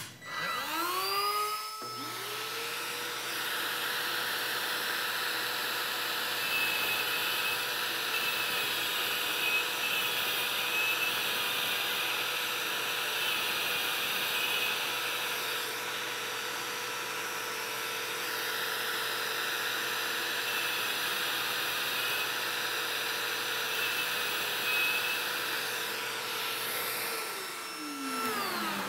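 Milwaukee M12 rotary tool in a tungsten grinder spinning up with a rising whine, then running at a steady high whine while a TIG tungsten electrode is ground on its diamond wheel. A Porter-Cable shop vacuum hooked to the grinder runs alongside from about two seconds in. The whine falls away as the tool shuts off near the end.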